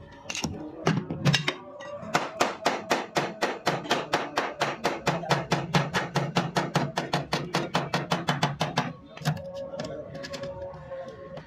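Hammer tapping rapidly on a car's sheet-metal side panel, about five or six even blows a second for some seven seconds, as the dent is worked out. Background music plays beneath.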